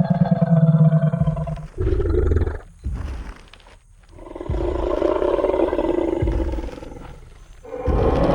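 Designed Tyrannosaurus rex sound effect: a deep roar dies away about two seconds in, a low thud follows, then after a short lull a second, higher roar with low thuds beneath. A new loud roar breaks in near the end.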